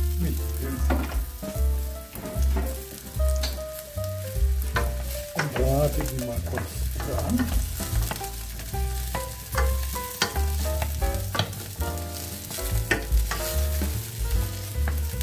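Button mushrooms sizzling and frying in a hot stainless-steel pan while being stirred, the utensil clicking and scraping against the metal as they are browned.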